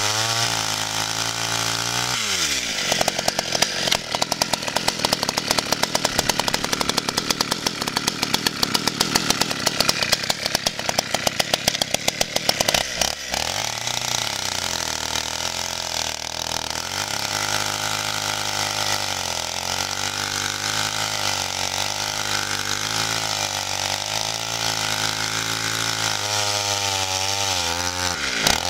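Partner 350 two-stroke chainsaw engine, about 35cc, idling, then revved up about two seconds in and held at high revs for roughly ten seconds. It drops back to an idle that rises and falls unevenly, with a short rev near the end.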